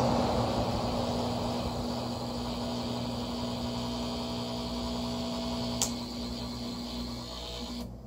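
Small window air conditioner running on an inverter, its fan running on high while the compressor tries to start and stalls, giving a steady electrical hum that slowly gets quieter as the inverter's output sags to about 85 volts. A sharp click comes about six seconds in, and the hum drops away just before the end. The stall is the compressor being restarted without its three-minute wait, which overloads the inverter.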